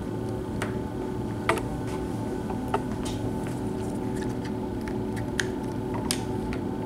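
A few light clicks and taps of a plastic compute stick and its USB Type-C cable being handled and plugged in on a wooden tabletop. The loudest click comes about a second and a half in. A steady hum runs underneath.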